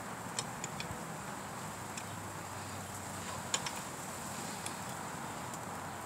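Scattered light clicks and taps of a metal foot peg and its mounting hardware being handled and tried against the moped's frame, over a steady background hiss; the sharpest click comes about three and a half seconds in.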